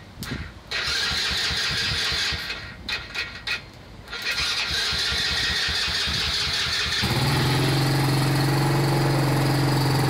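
Chinese ATV's starter motor cranking the engine, worked by bridging the starter relay with a screwdriver because the machine is broken. It cranks in two goes, and about seven seconds in the cold engine catches and settles into a steady idle.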